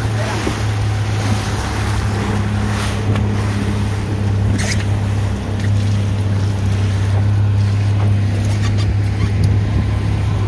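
Small fishing boat's outboard motor running at a steady pace under way, a constant low hum, with wind and rushing water around the hull.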